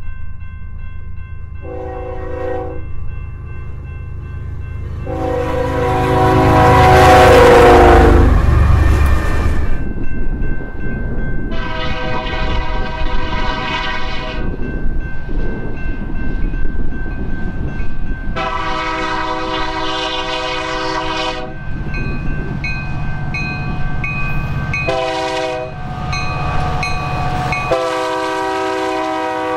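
Diesel freight locomotives' air horns sounding over the low rumble of the engines and rolling train. First a short blast, then a long one that is loudest as the lead locomotive passes. After a cut, a second train's horn sounds long, long, short, long, the grade-crossing signal.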